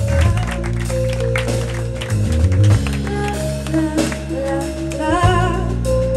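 A funk band plays live: electric bass and a drum kit, with a voice singing over it in places.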